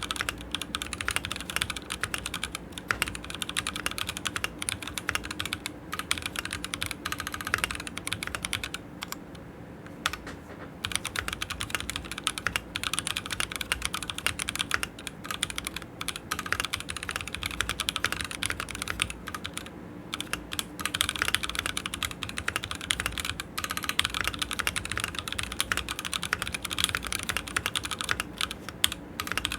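Typing on a Keychron Q6 mechanical keyboard with Gazzew Boba U4T tactile switches: a continuous run of keystrokes, with a brief lull about nine seconds in.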